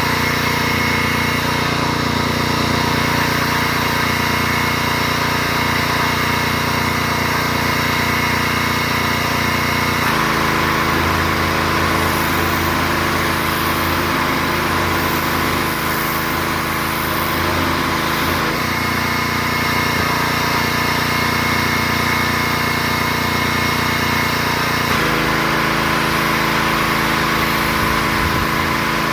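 Small gas engine of a pressure washer running steadily, its tone changing abruptly three times.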